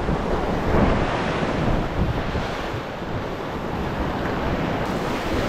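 Surf waves breaking and washing up a sandy beach in surges, over a steady rumble of wind on the microphone.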